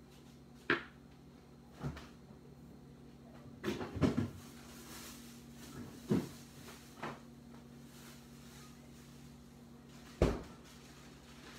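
Tableware knocking and clattering on the table during a meal, about seven short sharp knocks, a quick cluster around four seconds in and a loud one near the end, over a steady low hum.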